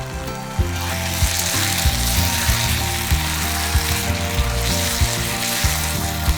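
Food sizzling as it fries in a pan, the hiss starting under a second in and holding steady, over background music with a regular beat.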